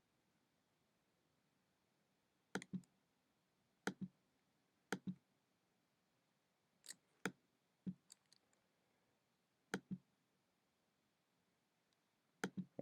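Computer mouse clicking, mostly in quick pairs a fraction of a second apart, about seven times, with near silence between.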